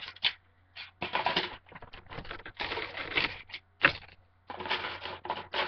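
Plastic iPhone 5c cases being handled, clicking and rattling in irregular bursts, with a couple of sharp clicks, the loudest about four seconds in.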